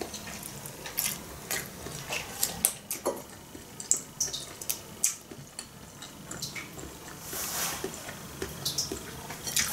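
Close-up eating sounds: long pasta strands being slurped off a fork, then chewed, with many small scattered wet clicks and smacks of the mouth.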